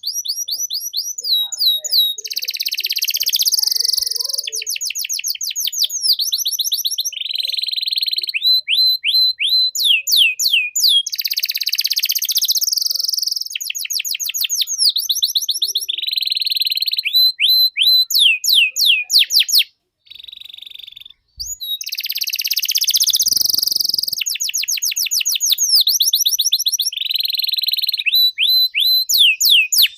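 Domestic canary singing a long, continuous song: phrase after phrase of rapid trills, each a quick run of repeated rising notes, switching to a new trill every second or two. There is a brief pause about twenty seconds in.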